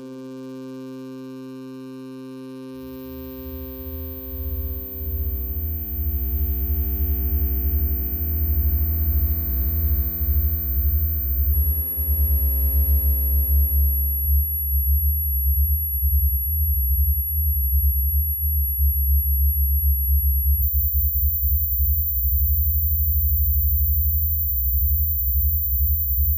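Electronic film score: sustained synthesizer chord tones fade away over the first half. A deep, fluttering low drone comes in about three seconds in and carries on. A faint, very high thin whine shifts pitch twice.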